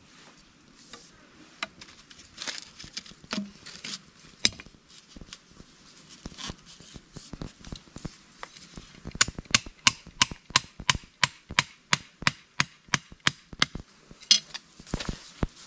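A green bamboo stake being driven into stony forest ground with repeated blows: scattered knocks at first, then a steady run of sharp knocks, about three a second, in the second half.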